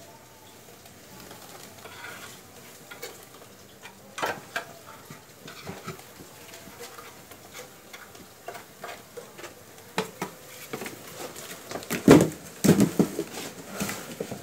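Scattered scrapes, taps and knocks of a wooden box being handled overhead during a bee removal, with a few heavier thumps near the end.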